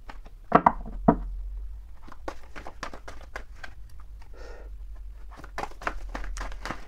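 A deck of oracle cards being shuffled overhand, a quick irregular run of flicks and snaps as the cards slide and slap together, with a couple of louder slaps about half a second and a second in. A low steady hum lies underneath.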